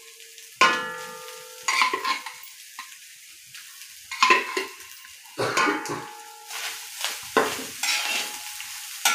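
A metal spoon knocking and scraping in a large metal wok while stirring cooked little millet, about a half-dozen sharp knocks spread over the stretch, each leaving the pan ringing briefly.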